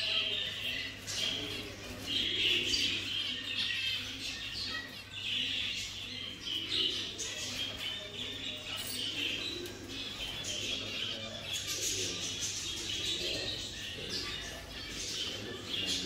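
A chorus of small cage birds chirping and twittering continuously, many short overlapping high calls.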